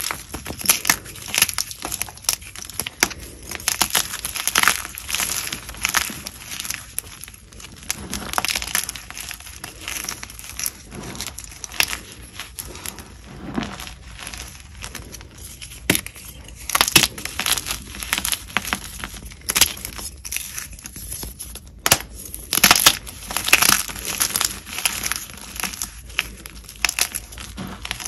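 Dyed and plain chalk crunching as it is bitten and chewed: a rapid, irregular run of crisp crunches with short pauses.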